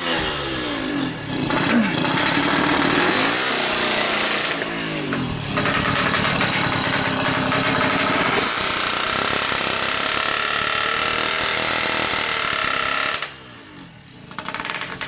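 Yamaha F1ZR drag bike's 116cc two-stroke engine revved through its expansion-chamber exhaust. There are several quick blips rising and falling in the first five seconds, then the engine is held at high revs for about seven seconds. It drops back sharply about thirteen seconds in, then gives one more short blip near the end.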